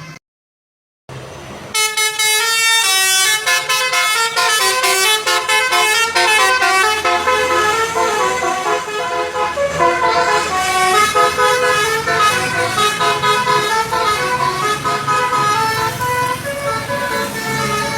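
Tour bus's 'basuri' telolet horn playing a fast melody of short stepped notes, starting about two seconds in, with the bus's engine running low underneath.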